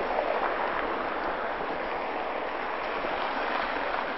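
Steady city street noise: an even hiss of traffic and passers-by along a downtown street.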